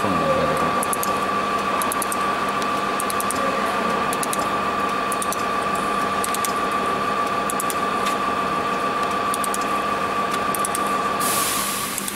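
Laser welding machine running with a steady high whine over a low hum, with groups of faint rapid ticks. Near the end a hiss starts, and then the machine sound drops away.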